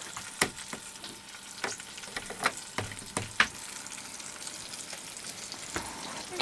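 Fish frying in a pan: a steady sizzle with scattered sharp crackles and clicks.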